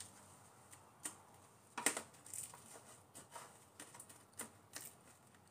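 Cutlery clicking and scraping against a plastic food container as food is cut in it: a few scattered sharp clicks, the loudest about two seconds in.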